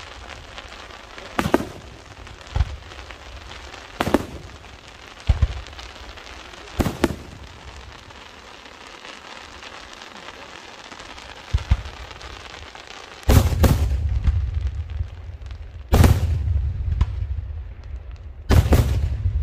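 Daytime aerial firework shells bursting overhead: about six sharp bangs a second or two apart, then after a short lull three heavier booms about two and a half seconds apart, each trailing a long low rumbling echo.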